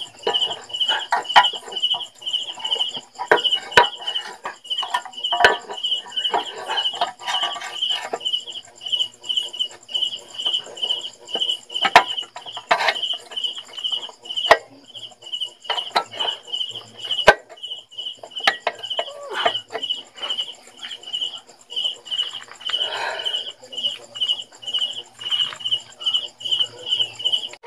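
An insect chirping steadily, about twice a second, as a high pulsed trill, with scattered sharp clicks and knocks from a GY6 scooter's belt-drive cover being handled and fitted.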